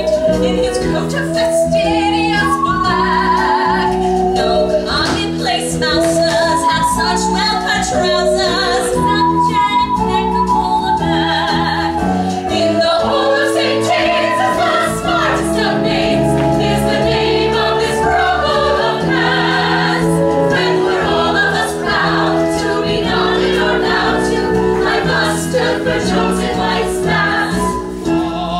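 Stage musical number: a group of voices singing over a band accompaniment.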